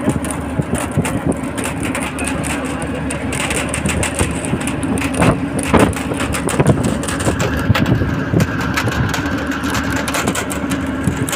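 Moving bus heard from inside at the window: a steady engine drone under road and wind noise, with frequent short rattles and knocks.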